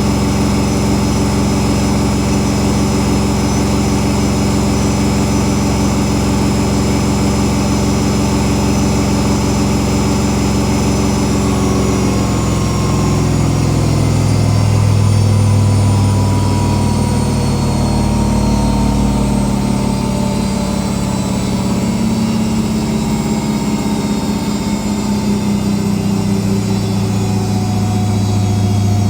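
Whirlpool Indiana 1400 washing machine spinning at high speed, a steady motor whine over a low drum hum. About twelve seconds in, the whine starts falling slowly in pitch as the spin begins to slow down.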